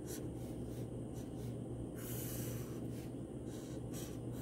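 Sharpie permanent marker drawing lines on paper: soft scratchy strokes, one per line, the longest about two seconds in. A low steady hum runs underneath.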